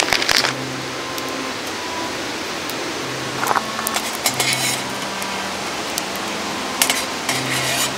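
Wood fire crackling in a steel fire pit, with a steady hiss and several short clusters of sharp clicks, near the start, in the middle and near the end. Some of the clicks are the metal poker clinking against the burning wood and the pit.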